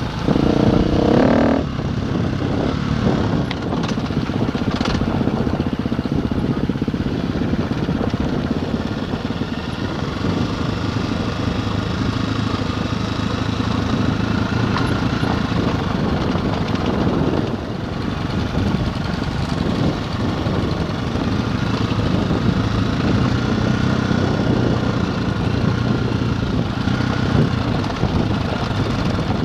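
KTM enduro motorcycle engine running steadily while riding a gravel track, heard from on the bike, with wind noise over the microphone. A brief louder burst of engine comes about a second in.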